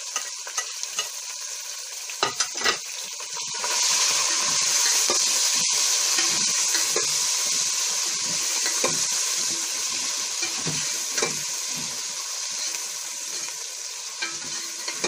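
Chopped tomatoes frying with browned onions in hot oil in a metal pot, sizzling steadily while a steel spoon stirs and scrapes the pot. A few sharp knocks of the spoon come two to three seconds in, and the sizzle grows louder about four seconds in.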